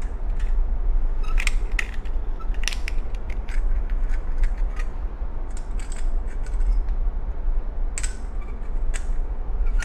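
Light metal clicks and clinks of steel spring collets and a collet nut being handled by hand as a collet is taken out and pressed into the nut. The clicks come irregularly over a steady low hum.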